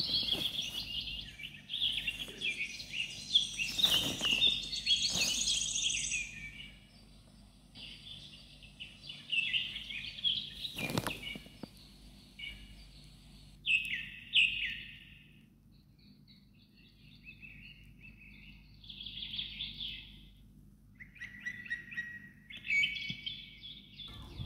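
Small birds chirping and twittering in bouts: a dense chatter for the first several seconds, then shorter scattered bursts of chirps. A few sharp clicks sound in between.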